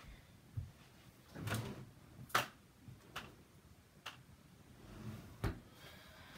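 Household rummaging: a string of about six sharp knocks and clunks with some rustling, the loudest knock about two and a half seconds in.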